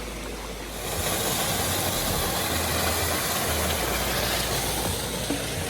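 Steady rushing hiss of flowing water, growing louder about a second in and then holding.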